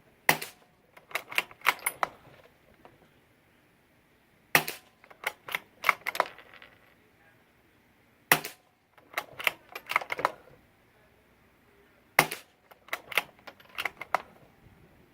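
A suppressed CZ 455 bolt-action .22 rifle firing subsonic rounds: four sharp shots about four seconds apart. Each is followed by a quick run of clicks as the bolt is worked to eject the case and chamber the next round.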